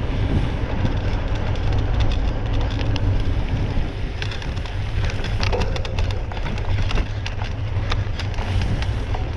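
Wind rumbling on the microphone, with many sharp clicks and rattles scattered through it.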